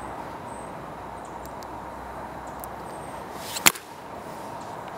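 A paintball marker firing a single shot about three-quarters of the way in: one sharp crack over a steady low background hiss.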